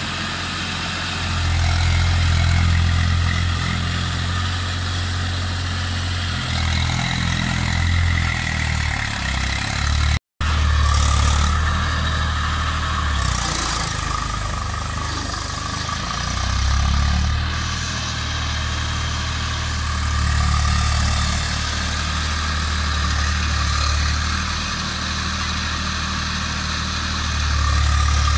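Eicher 380 tractor's diesel engine running under load as it pulls a cultivator through waterlogged mud, its note swelling and easing every few seconds. The sound cuts out for a moment about ten seconds in.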